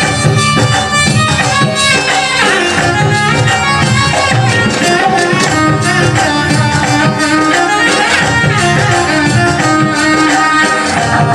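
Rajasthani devotional folk music played live, with hand-drum strokes keeping a steady beat under a sustained, reedy melody line.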